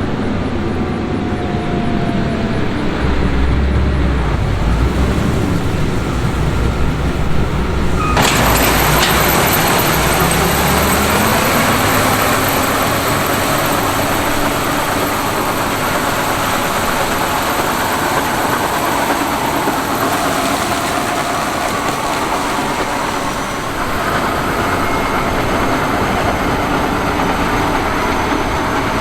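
John Deere X9 1000 combine running while harvesting corn: a steady drone of engine and threshing machinery. About eight seconds in the sound changes abruptly to a brighter, hissier mix, and soon after a low hum rises a little in pitch.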